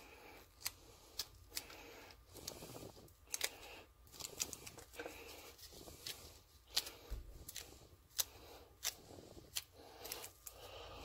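Faint, irregular clicks and small rubbing sounds of gloved fingers working epoxy putty into the threads of a small metal lathe cross-slide nut.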